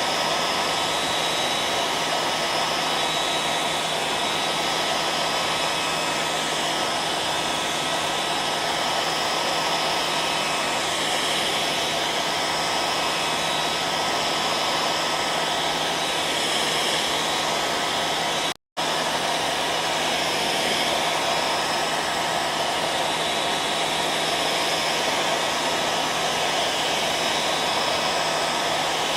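Hair dryer running steadily: an even rushing airflow with a faint steady whine. It cuts out for a split second about two-thirds of the way in, then carries on unchanged.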